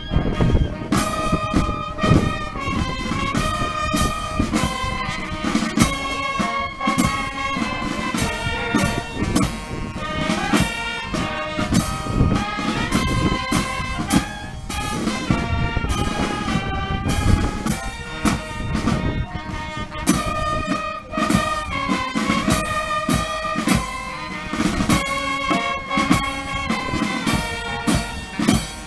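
Military band of brass and drums playing a march: brass instruments carry the tune over steady snare and bass drum beats.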